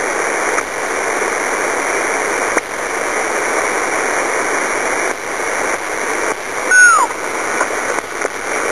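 Radio receiver hiss on an 11-metre band channel between transmissions, a steady rushing static with a few brief dropouts. About seven seconds in, a short whistle glides down in pitch.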